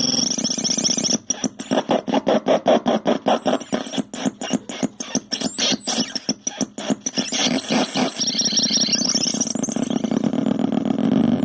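Handmade four-oscillator noise generator putting out a harsh, buzzing synth drone. About a second in it breaks into rapid stuttering pulses, roughly four to five a second, for about seven seconds. It then settles back into a steady drone, with a high tone rising near the end.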